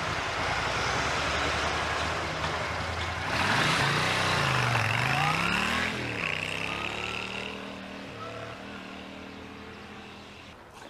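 Small motorcycle engine running, then pulling away about three seconds in, its pitch dipping and rising as it accelerates. It fades steadily as the bike rides off.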